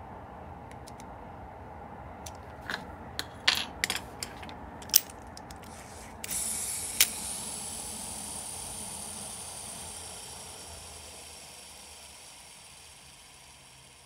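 Small metal clicks and snaps from the Shimano Calcutta Conquest 400 baitcasting reel as it is handled and closed up. About six seconds in, its spool is set free-spinning with the brake off, giving a steady high whir that fades slowly as the spool runs down on its freshly overhauled, lightly greased bearings.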